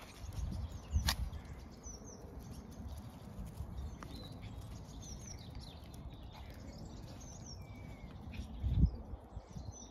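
Small birds chirping and twittering, with many short high calls scattered throughout. Low muffled bumps sound about a second in and again, louder, near the end, with a single sharp click about a second in.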